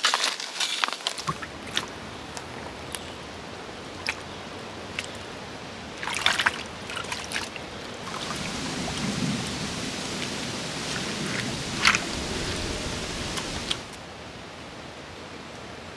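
Plastic gold pan being worked in a muddy puddle: water sloshing and gravel rattling in the pan, with scattered clicks and scrapes of stones. The sloshing stops a couple of seconds before the end.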